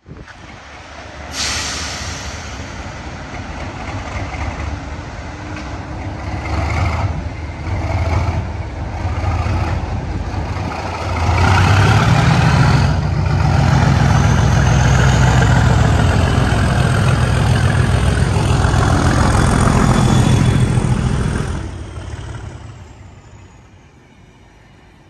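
English Electric-engined Class 37 diesel locomotive approaching and passing under power, its engine growing louder, then loud with a heavy low throb for about ten seconds as it goes by. The sound dies away quickly near the end as the coaches behind it roll past.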